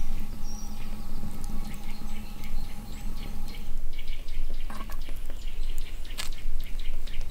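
Wood fire crackling and popping, with a steady low hum through the first half and a couple of sharper knocks about five and six seconds in.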